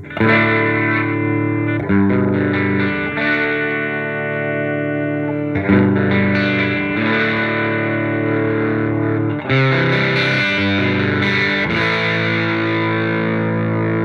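Gibson Les Paul played through a hand-wired Marshall JTM45 Plexi clone head and 1x12 cabinet: overdriven chords are strummed and left ringing, changing every second or two.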